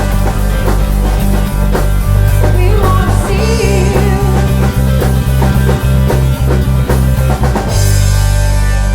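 Live rock band playing: drum kit keeping a steady beat under bass and guitar, with a voice singing a line partway through. Near the end the drumming stops and the band holds a chord that rings on.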